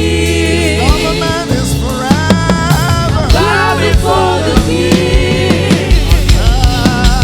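Live gospel worship music: singing voices over a band with steady bass and drums, the low drum beat growing heavier near the end.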